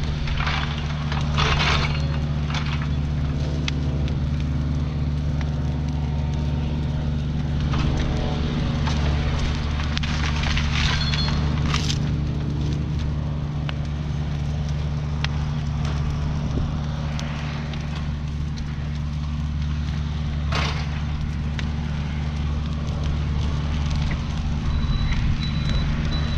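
Mini excavator's diesel engine running steadily, with a few sharp cracks and snaps over it.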